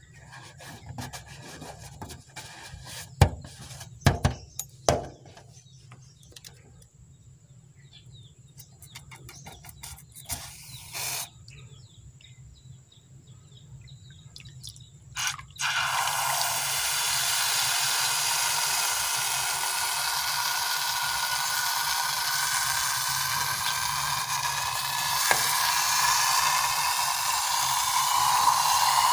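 Handling knocks and rubber rubbing on a balloon, then about halfway through a sudden steady hiss as the squeezed rubber balloon empties through its pinched neck, with faint squealing tones that rise near the end.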